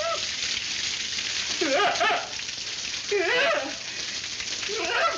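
Water spraying from leaking plumbing pipes in a steady hiss, broken a few times by a man's short, wavering yelps.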